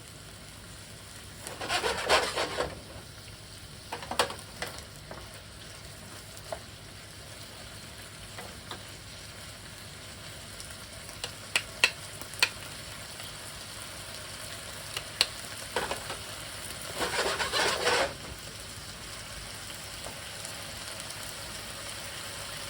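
Sliced chicken and onions sizzling steadily in a hot frying pan, browning. A utensil scrapes and stirs through the pan twice, about two seconds in and again near the end, with a few sharp clicks against the pan in between.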